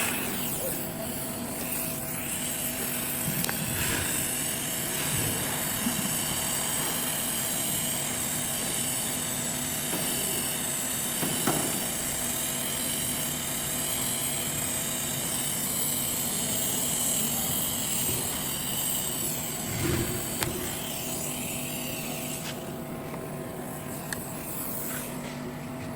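A steady mechanical drone, like a running machine, holding several steady tones, with a few faint clicks.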